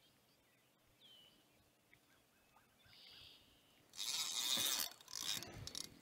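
A few faint bird chirps, then about four seconds in a loud burst of scraping and clicking from a spinning rod and reel being handled and reeled, breaking off briefly and starting again near the end.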